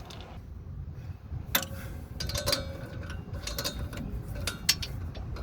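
Scattered sharp metallic clicks and clinks of a wrench working on the lower rear shock bolt as it is tightened.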